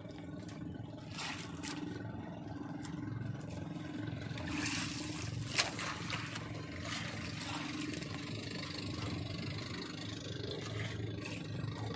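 Steady low drone of a boat engine running, with light scrapes and knocks from the hand line and gear, and one sharp knock about five and a half seconds in.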